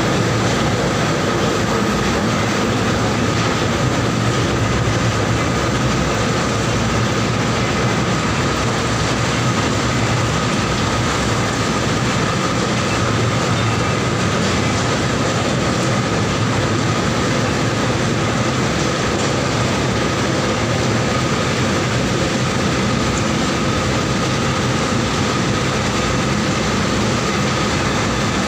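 Mustard oil mill machinery running: a steady, loud mechanical din with a constant whine held throughout.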